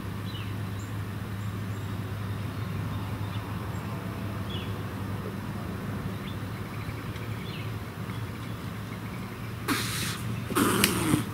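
A steady low hum with a few faint, short bird chirps scattered over it. About ten seconds in come several loud, rough bursts of noise as a man runs out across the lawn.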